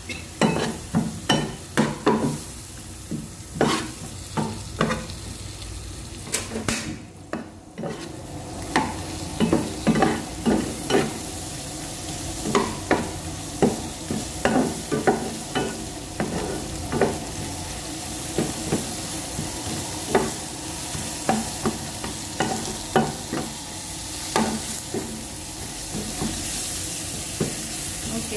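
Ground spice paste with chillies, lemongrass and lime leaves sizzling in a frying pan, while a metal spatula scrapes and knocks against the pan in quick, irregular strokes. The stirring stops briefly about seven seconds in.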